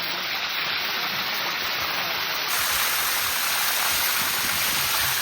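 Steady rush of water running down the tiers of a cascading waterfall.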